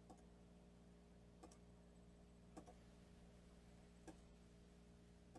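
Near silence over a low steady hum, broken by about five faint clicks of a computer mouse, one every second or so.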